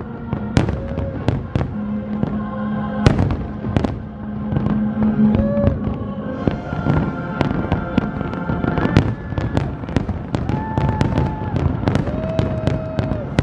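Fireworks display: many aerial shells bursting in quick succession, a dense run of sharp bangs and crackles, with music playing underneath.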